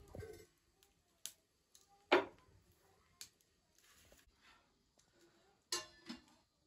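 A few separate sharp knocks and clicks over a quiet background: the loudest about two seconds in, fainter ones around one and three seconds, and two close together near the end.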